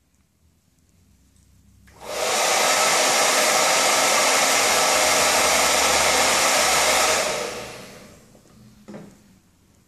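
Handheld electric hair dryer switched on about two seconds in, blowing with a loud, steady rush of air for about five seconds, then switched off and winding down. A small knock follows near the end.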